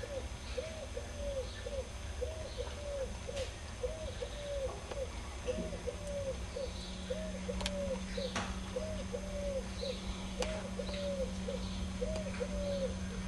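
A pigeon cooing: short arched coos repeated about twice a second, with small birds chirping faintly. A low steady hum starts about halfway through.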